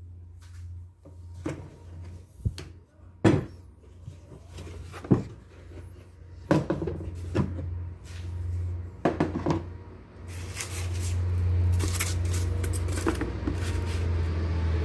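Objects being handled and set down: a series of sharp knocks and clicks over a steady low hum, turning into a denser run of clatter and hiss about two-thirds of the way through.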